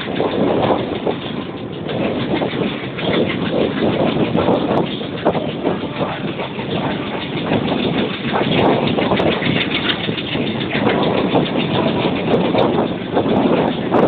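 WDM-3A diesel locomotive's ALCO 251 V16 engine chugging under power as it accelerates the train, heard from a coach alongside the clatter and rumble of the wheels on the rails.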